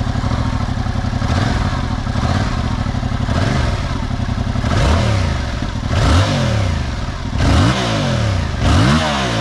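Yamaha R7's 689 cc parallel-twin engine running through its stock exhaust, idling and then revved in a series of throttle blips that rise and fall back to idle, the later blips bigger. This is the bike's stock exhaust sound before an SC Project full system goes on.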